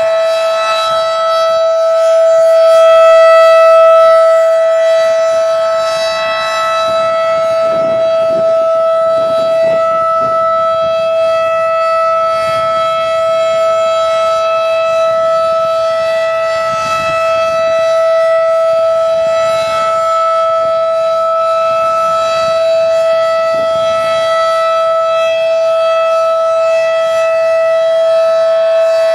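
Second-generation Federal Signal 2001 outdoor warning siren sounding a steady alert at full speed, one held tone of about 690 Hz with its overtones. It grows louder about three seconds in as the slowly rotating horn sweeps toward the listener.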